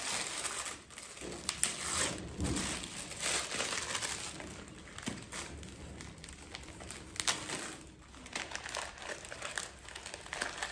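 Tissue paper wrapping crinkling and rustling as a gift is unwrapped by hand, with a few sharper crackles.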